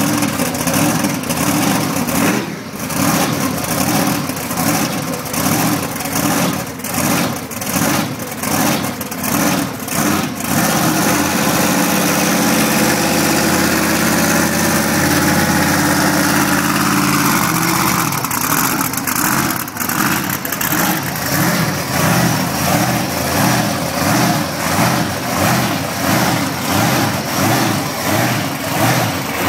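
Grave Digger monster truck's supercharged big-block V8 running loud with a rhythmic, pulsing idle. About a third of the way in the revs are raised and held steady for several seconds, then drop back to the pulsing idle.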